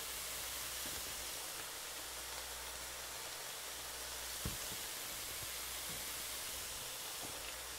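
Ground beef and onion sizzling steadily in an electric skillet, a soft even hiss, with a light click about four and a half seconds in.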